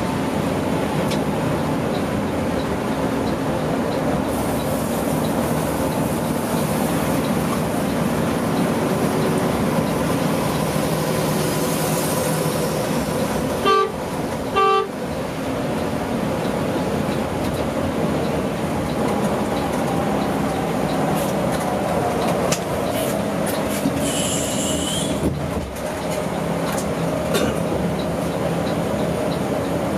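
Steady engine and road drone inside a Mercedes-Benz OH 1626 coach cruising on a highway. Near the middle it is broken by two short horn toots about a second apart.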